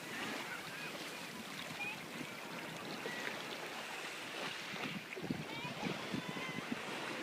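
Sea waves washing and churning with wind, a steady rush of water, with a few sharper splashes in the second half.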